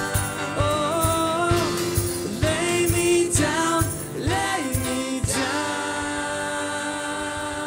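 Live church worship music: a singer's voice gliding over a sustained band chord. The voice stops about five seconds in, leaving the held chord to fade.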